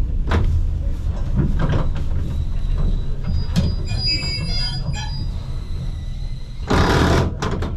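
Vintage electric tram running on its rails with a steady low rumble. Its wheels squeal with thin high tones for about a second and a half in the middle. A short burst of hiss comes near the end.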